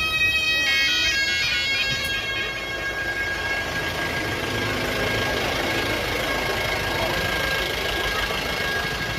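A reed wind instrument plays a quick run of stepping notes, then holds one long, steady high note.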